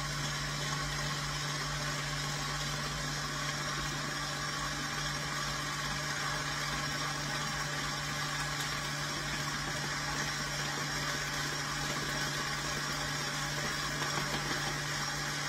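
Electric tilt-head stand mixer running steadily on a low speed, its beater churning thin egg-and-oil batter as flour is gradually added. It makes an even motor hum.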